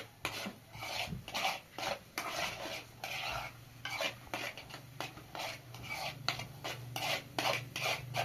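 A utensil scraping and stirring eggs in a metal frying pan in a quick run of short strokes, two or three a second, over a low steady hum that gets stronger about halfway through.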